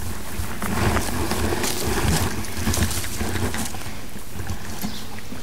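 Wind buffeting the microphone: a low, uneven rumble that comes and goes, with light rustling noises on top.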